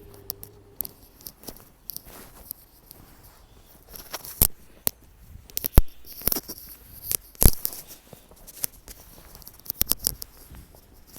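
Footsteps crunching in snow: irregular crunches and scrapes with a few sharper knocks, the loudest a little under halfway through and about two-thirds of the way through.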